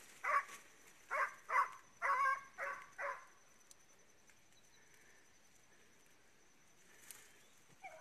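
Hunting dog barking, about six short barks in quick succession over the first three seconds, then only faint background.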